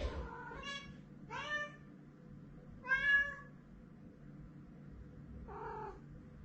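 Domestic cat meowing four times, each call a short rising-and-falling meow, the third the loudest and the last lower and shorter.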